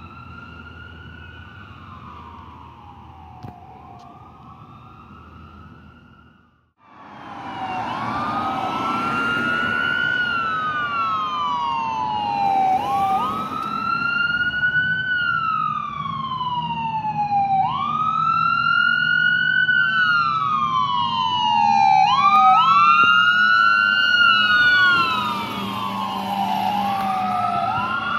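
Fire engine siren wailing, rising and falling in slow sweeps about every five seconds, heard as two slightly offset tones. It is faint at first, cuts out briefly about seven seconds in, then returns much louder as the fire engine approaches.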